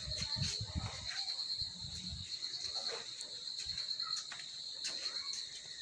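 A steady high-pitched trill, with faint low thuds in the first two seconds and a few light clicks.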